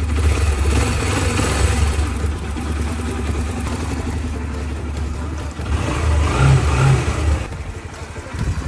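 Motorcycle engine running at idle with a newly replaced timing chain and reset tensioner. It runs steadily, then dies away about a second before the end.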